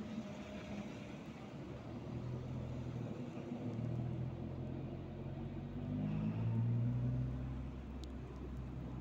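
Road traffic: cars passing, then a city bus approaching, its low engine drone growing loudest about six or seven seconds in and holding steady as it pulls up.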